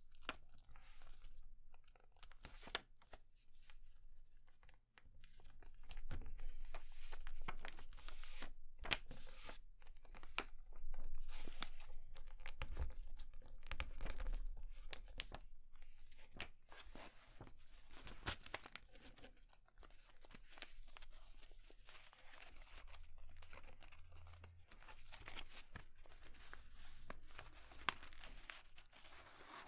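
A sheet of paper rustling and crinkling as it is folded by hand into a paper airplane, with fingers pressing and sliding along the creases. The crackles come irregularly and are loudest through the middle stretch.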